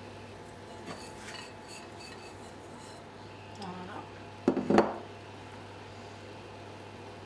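A glass mixing bowl clinking lightly as it is handled, then set down on the countertop with a short cluster of sharp knocks about four and a half seconds in.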